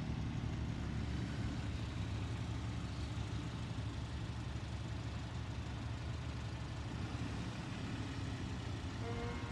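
Car engines idling and running at low revs as cars creep slowly past, a steady low rumble.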